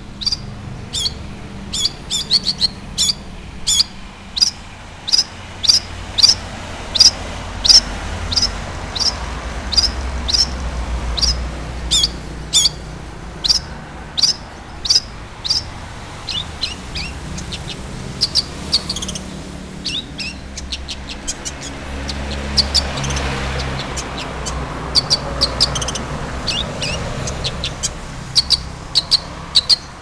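Long-tailed shrike (cendet) calling over and over: short, sharp, high notes, about one to two a second, with a brief lull about two-thirds of the way through. A low rumble runs underneath and swells twice.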